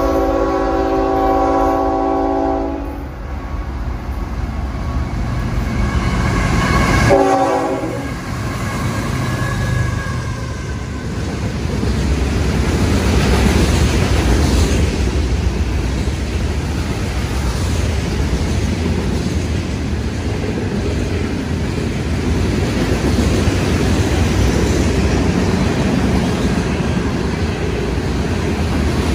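CSX freight train's locomotive air horn sounds a chord in a long blast that ends about three seconds in, then a short blast around seven seconds in as the locomotives pass. After that comes the steady rumble and clatter of freight cars rolling by.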